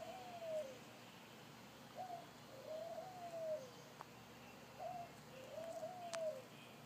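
Dove cooing: a short coo followed by a longer coo that rises and falls in pitch, repeated three times about every three seconds.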